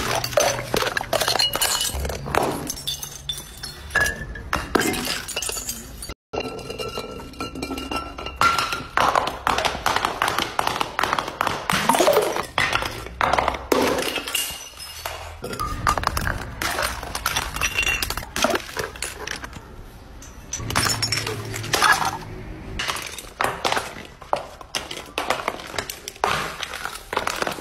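Full glass beer and liquor bottles tumbling down concrete steps: a long run of clinks and knocks as they bounce from step to step, with bottles breaking and shattering now and then.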